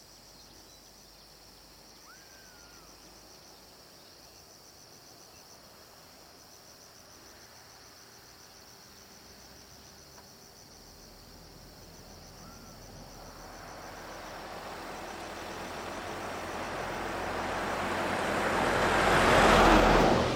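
A car approaching on the road, its engine and tyre noise swelling over several seconds to a loud peak near the end, then dropping away quickly as it passes close by. Underneath, insects chirr steadily in a high, even pulse.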